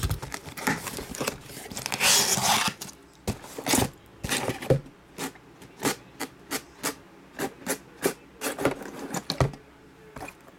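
Cardboard shipping box being handled and opened, with a stretch of cardboard scraping and rubbing about two seconds in. Then come a series of short knocks as shrink-wrapped trading-card boxes are set down and stacked on the table.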